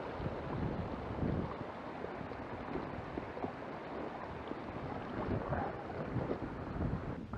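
Wind buffeting the microphone on an open mountainside: an irregular, rumbling rush of noise, heaviest in the low range, rising and falling in gusts.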